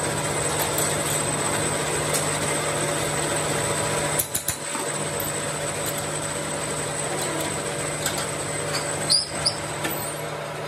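Metal lathe running with a steady hum and a high whine, and sharp metal clanks about four seconds in and again near nine seconds, as a cast brake cylinder body is clamped onto the faceplate fixture and the spindle is set turning.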